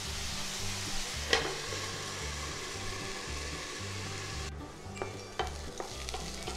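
Potato wedges and onions sizzling in hot oil in a lidded pan, a steady frying hiss. About four and a half seconds in, the sizzle drops away and a spatula taps and scrapes against the pan a few times as the potatoes are stirred.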